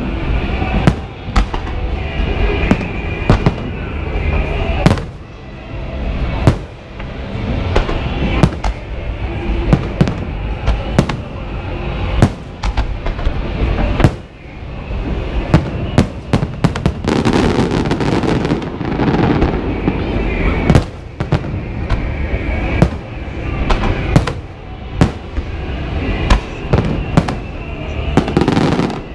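Fireworks display: a continuous low rumble of shell bursts with loud, sharp bangs about every second or so. A little past the middle there is a thick stretch of rapid crackling.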